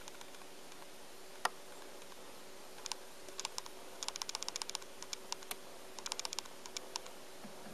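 Technics SL-5 linear-tracking turntable's tonearm mechanism clicking lightly and irregularly in short clusters after Stop is pressed, over a faint steady hum.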